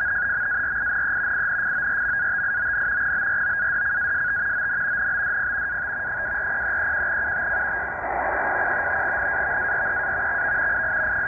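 NAVTEX marine broadcast from Iqaluit Coast Guard Radio (VFF) on 8415 kHz, heard through a Tecsun H-501X shortwave receiver's speaker in upper sideband: a steady, unbroken data tone over shortwave hiss. The signal is strong enough that it decodes cleanly into text as it is received.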